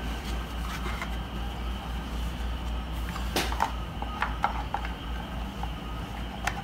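Hard plastic dust cover being handled and fitted against a gaming chair's metal recline bracket: a few light clicks and knocks, the sharpest about three and a half seconds in, over a steady low hum.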